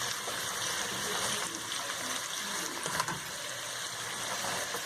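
Onion and sauce mixture sizzling steadily in a frying pan on the flame as fried Manchurian balls are added, with a light knock about three seconds in.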